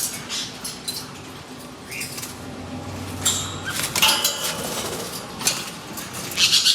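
Light metallic clinks and rattles, then loud harsh parrot squawks near the end.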